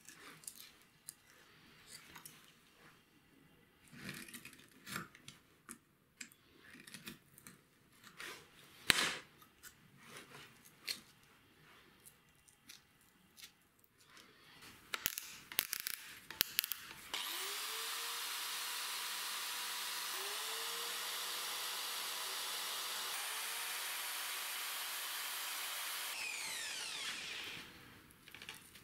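Small handling clicks and paper rustles as P120 sandpaper is wrapped around a small dowel sanding drum. About 17 seconds in, a power drill spins the drum up with a loud, steady rushing hiss for about nine seconds. Its motor whine climbs three times, then the drill winds down.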